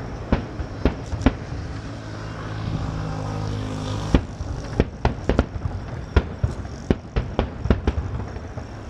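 Aerial fireworks bursting: a scattering of sharp bangs and crackles, then a dense run of them from about halfway. In between, a steady low hum rises for a couple of seconds and is cut off by a bang.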